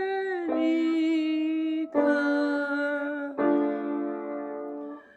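Electronic keyboard playing the song's melody in four long held notes, one after another, fading out near the end.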